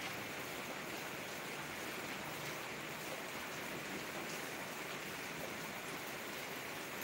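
Steady rain falling, an even hiss of water with faint scattered drop ticks.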